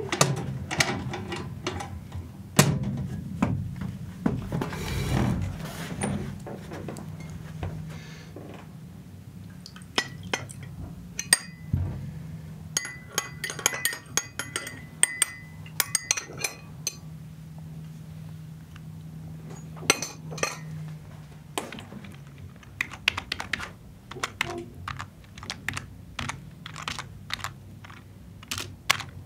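Office sounds: typing on a computer keyboard in bursts, with scattered clicks and knocks of desk objects and a brief rustle, over a low steady hum that stops about two-thirds of the way through.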